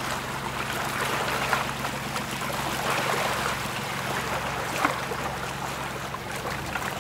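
Water rushing and splashing as a cargo ship's bulbous bow cuts through the river, with a steady low engine hum underneath.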